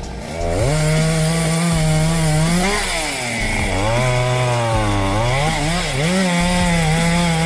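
Chainsaw engine running at high revs while cutting through a large trunk, its pitch sagging and recovering several times as the chain loads up in the wood.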